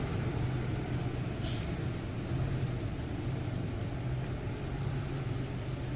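Mitsubishi Fuso truck's diesel engine running with a steady low drone as the truck comes down a steep grade. A short hiss comes about a second and a half in.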